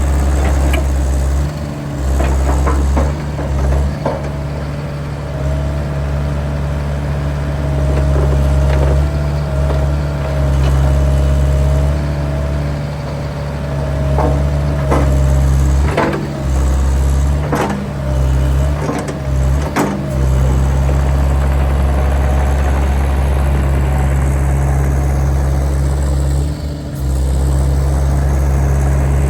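Bobcat E80 midsize excavator being worked: its diesel engine runs steadily, sagging briefly several times, with a wavering whine for several seconds in the middle. Sharp knocks and clanks come scattered through the first two-thirds.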